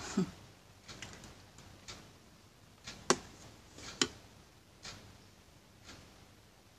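Light clicks and taps of small makeup items being handled and set down, roughly one a second, with two sharper clicks about three and four seconds in.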